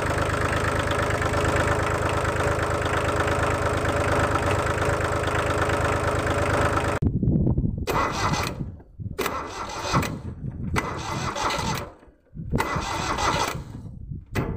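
Diesel tractor engine running steadily with a fast, even beat. About seven seconds in it breaks off abruptly into short, stop-start bursts of engine sound with near-silent gaps between them.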